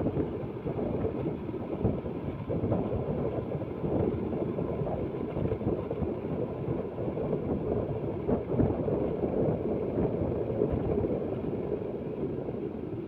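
Wind buffeting the microphone on a moving motorbike, a gusty rushing noise over the low rumble of the ride.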